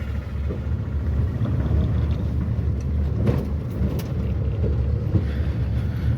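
Cabin noise of a 2012 Maruti WagonR driven over a rough road: a steady low rumble with a few faint knocks, which the owner puts down to the rear boot lid rattling, loose after 13 years of use.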